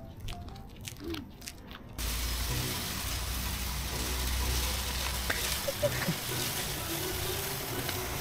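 A dry tree branch dragged along a concrete path, its twigs scraping with a steady hissing rustle that starts suddenly about two seconds in.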